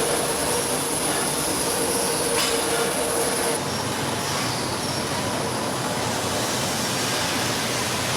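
Metalworking machinery running with a steady, dense din and a high metallic whine that cuts off about three and a half seconds in, with a single sharp click shortly before.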